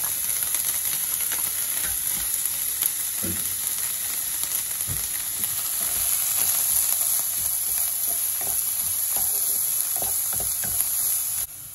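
Chopped vegetables and corn sizzling steadily in hot oil in a pan, with a spatula stirring and scraping now and then. The sizzle cuts off suddenly near the end.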